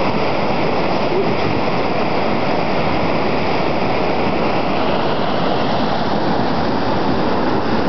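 Floodwater in a swollen creek rushing past the bank and under a small bridge: a steady, loud noise of turbulent water.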